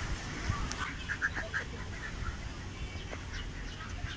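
Birds calling in short notes: a quick run of about five calls about a second in, then scattered single calls, over a low rumble.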